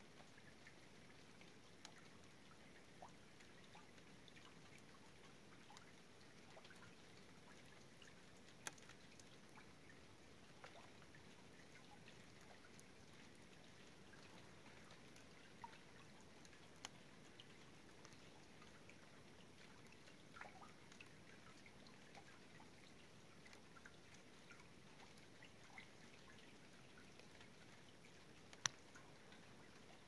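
Faint water drips falling into a still creek, scattered and irregular over a low steady hiss, with a few sharper drops standing out, the loudest near the end.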